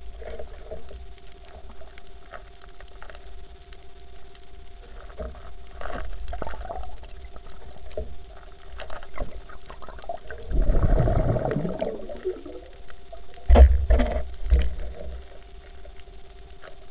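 Underwater sound picked up by a diver's camera on a reef: scattered clicks and crackles over a faint steady hum. A bubbly gurgling burst comes about two-thirds of the way in, and a few low thumps follow.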